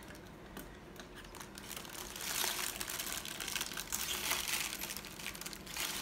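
Wax paper crinkling and rustling in irregular bursts as hands press and pull it around a soft slab of taffy in a metal pan, fainter in the first second or so and busier after that.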